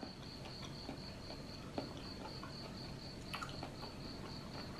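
Faint insect chirping: a high, steady trill pulsing about five times a second, with a few soft clicks of chewing.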